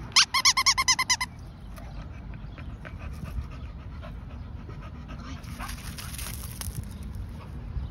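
A dog panting, with a quick run of about eight high-pitched squeaks in the first second.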